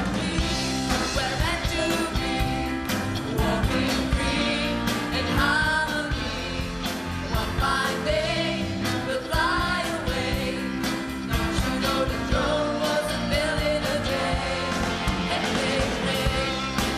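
Live rock band playing: a woman singing over drums, cymbals and electric guitar, with a steady beat.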